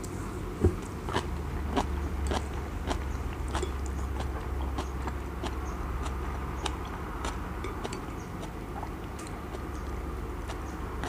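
A person chewing kimchi and japchae noodles close to the microphone, with frequent small crunching and wet mouth clicks. The sharpest click comes under a second in.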